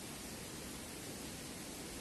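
Waterfall rushing: a steady, even noise of falling water with no rise or fall.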